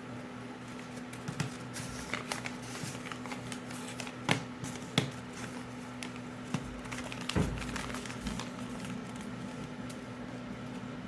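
A sheet of paper being folded and creased by hand: scattered crinkles and sharp snaps, the sharpest about four and five seconds in, and a soft thump a little after seven seconds. A steady low hum runs underneath.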